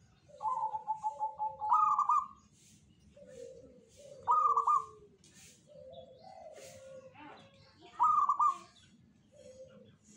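Zebra dove (perkutut) cooing: a quick stuttering run of notes leads into a louder, higher rolling coo. The loud coo comes three times, a few seconds apart, with softer, lower coos between.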